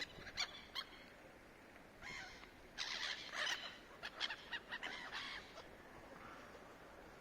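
Gulls calling: a few short calls in the first second, then a run of repeated calls from about two to five and a half seconds in.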